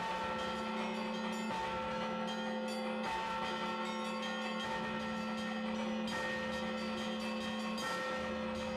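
Russian Orthodox church bells in festal ringing: several bells sound together, their tones overlapping and ringing on, with a low bell struck about every one and a half seconds.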